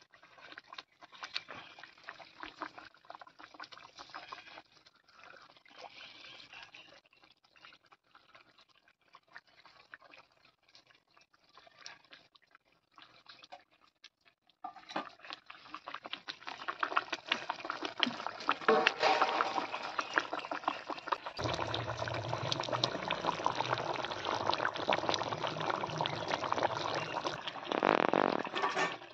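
Thin, oily curry gravy boiling and bubbling in a kadai as fried rui fish pieces are slid into it, with many small crackly pops. About halfway through the bubbling becomes much louder.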